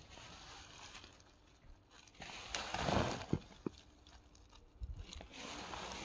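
Fresh wood chips and twigs rustling and crackling as a hand digs into and stirs them in a woven bulk bag. It is loudest about three seconds in, with a few sharp clicks of twigs.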